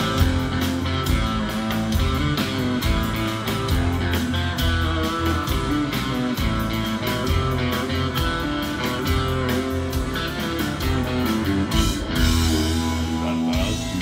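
Rock band playing live: electric guitars, bass and drums in the instrumental intro of a song, loud and steady.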